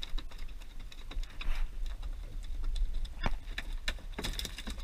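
Scattered light clicks and knocks of fish and gear being handled in a cooler on a small fishing boat, with one sharper knock about three seconds in and a cluster near the end, over a low steady rumble.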